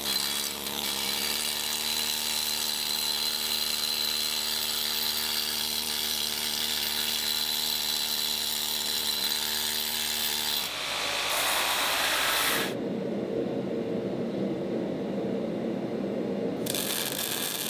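Power tools running in a metal shop in several short edited stretches: a steady motor whine for about ten seconds, then a noisier, different tool sound that changes again twice.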